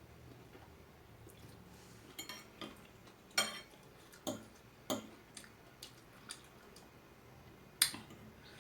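Noodle-eating sounds: about nine short, sharp clicks and clinks at irregular intervals, from a utensil against the bowl and from the mouth. The loudest comes near the end.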